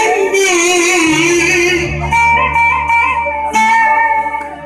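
Yamaha electronic keyboard playing an ornamented, wavering melody line, then held chords over a low bass note from about a second in.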